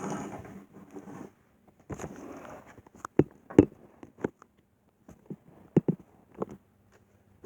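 Handling noise: a rasping rustle, then a few sharp knocks and clicks at irregular intervals, as objects are picked up and set down on a hard surface.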